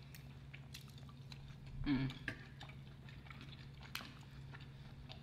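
Close-miked chewing and mouth sounds of people eating grilled suya meat and jollof rice, with small scattered clicks over a steady low hum. A brief hummed voice sound comes about two seconds in.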